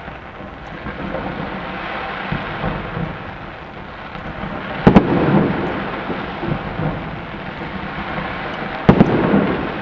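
Fireworks display: a continuous crackle and rumble of shells going off, with two loud booms about four seconds apart, one near the middle and one near the end, each trailing off in a rumble.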